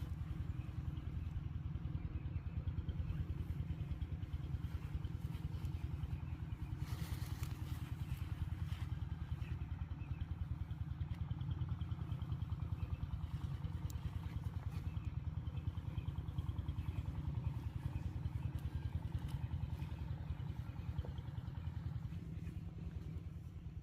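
A small engine running steadily, with a brief rustle about seven seconds in.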